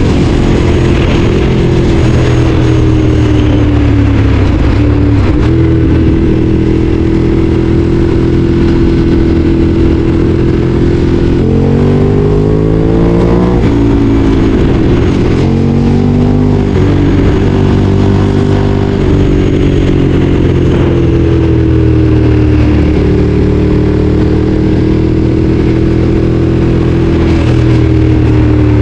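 Ducati Streetfighter 848's L-twin engine running loud under way, its note holding fairly steady and easing slightly at first, then climbing quickly in a rev-up about halfway through and falling back before settling into a steady cruise again.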